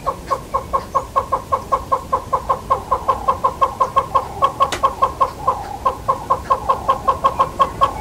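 Southern yellow-billed hornbill calling: a long run of short, evenly spaced notes, about five a second, that stops near the end.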